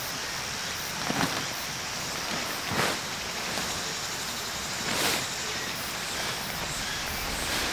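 Large tent fly sheet being lifted and pulled out over the ground, the fabric swishing and rustling in about three separate strokes against a steady outdoor hiss.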